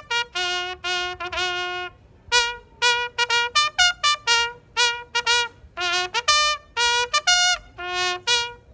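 A ceremonial bugle call: a single brass horn sounding a quick run of short and held notes on a few fixed pitches, with a brief pause about two seconds in.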